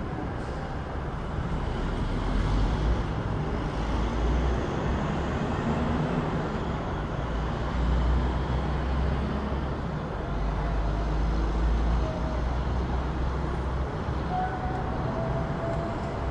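City street traffic: a continuous hum of vehicles with a low engine rumble that swells and fades as cars pass, about four times. A few faint, brief tones sound near the end.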